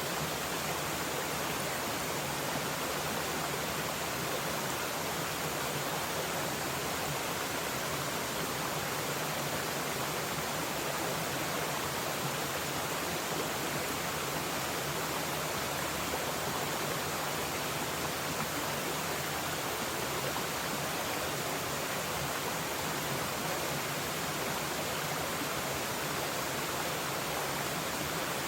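A mountain stream running steadily, an even rush of water with no breaks.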